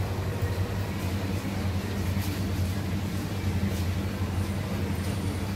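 A live seafood tank's aeration running: a steady low hum under the hiss of bubbles streaming up from the air stones.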